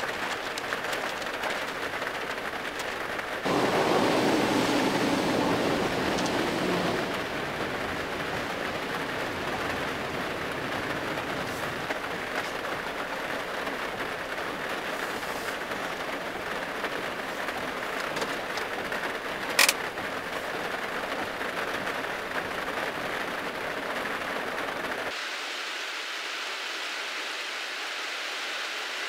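Heavy rain falling on a small van's roof and windshield, heard from inside the cabin as a steady hiss. It grows louder for a few seconds about four seconds in, there is one sharp tap a little before twenty seconds, and the sound turns thinner near the end.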